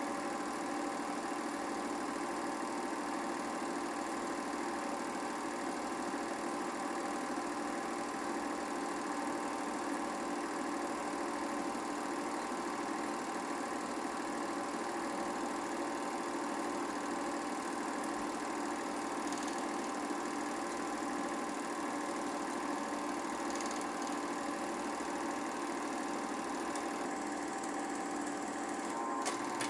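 Steady whirr and clatter of an 8mm film projector running the reel, with a sharp click near the end.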